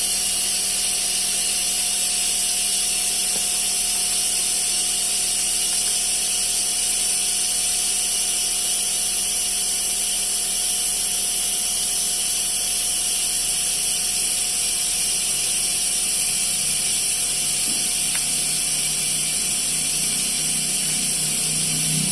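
A machine running steadily: an even high hiss over a constant hum, with a low pulsing sound coming in during the last few seconds.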